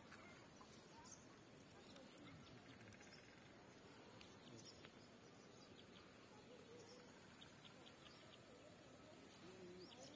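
Near silence: faint outdoor ambience with a few faint, short bird chirps.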